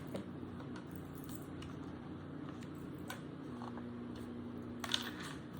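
Quiet room tone with a few faint clicks of light handling, the loudest about five seconds in.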